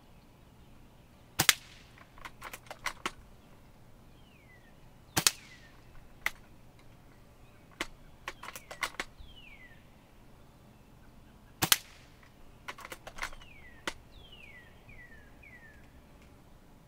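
L96 bolt-action airsoft sniper rifle fired three times, each shot a sharp crack. Between shots there are runs of lighter clicks from the bolt being worked to chamber the next BB.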